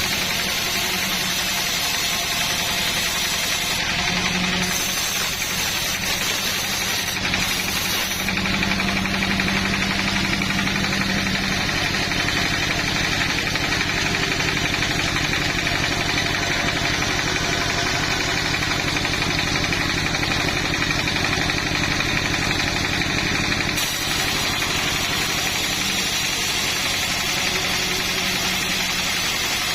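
A sawmill's engine running steadily at a constant speed, with a low, even hum and no pauses.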